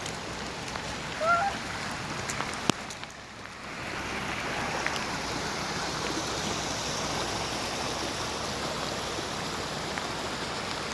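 Floodwater rushing steadily through a swollen creek running high under a bridge. It dips briefly about three seconds in, then comes back fuller. There is a short chirp about a second in and a sharp click shortly before the dip.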